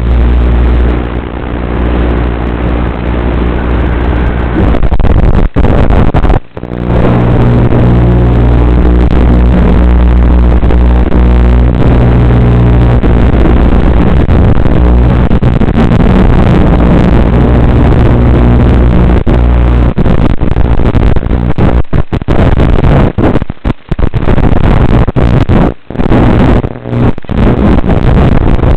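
FPV racing quadcopter's brushless motors and propellers running hard, a loud, distorted buzz steady in pitch. The sound drops out briefly several times, most of them in the last third.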